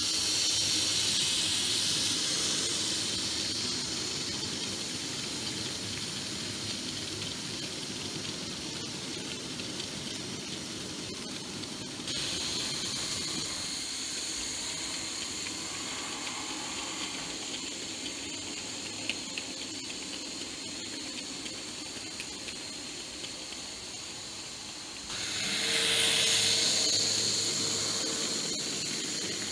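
Z gauge model trains running on the layout: a steady high hiss and whine of the tiny motors and wheels on the rails. It swells louder near the end as a train passes close.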